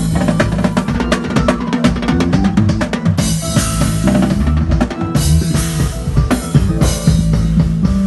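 A live band playing: an electric bass guitar holding low notes under a drum kit with busy snare and bass drum hits. Cymbals crash a little after three seconds in, again about five seconds in and once more near the end.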